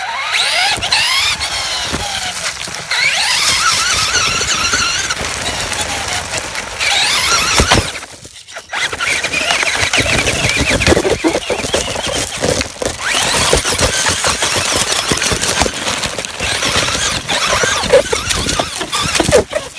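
Radio-controlled car's motor whining, rising in pitch as it speeds up, cutting out briefly about eight seconds in, with a constant rattle and crunch as the car runs over rough ground; heard from a camera mounted on the car.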